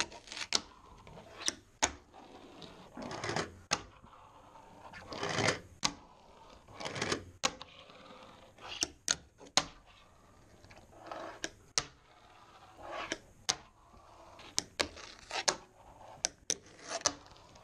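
A fingerboard rolling across a wooden tabletop in short runs, each run a swelling rumble of about half a second to a second, with many sharp clacks of the board popping, landing and hitting the wood.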